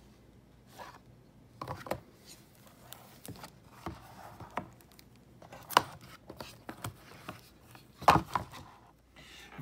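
Hands handling a Blu-ray case and its cardboard slipcover: light rubbing and sliding with scattered taps and knocks of the plastic case, the sharpest about eight seconds in.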